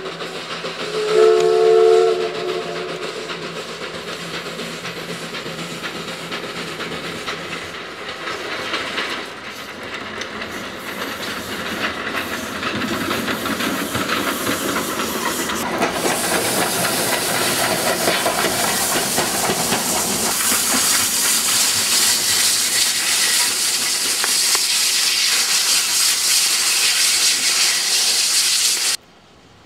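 Eu-class steam locomotive giving a short whistle blast about a second in, then the hiss and noise of its steam running grow louder as it comes closer, strong and steady through the second half until the sound cuts off suddenly near the end.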